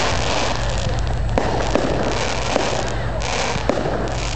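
Fireworks going off: a continuous crackle with sharper cracks scattered through it, over a steady low rumble.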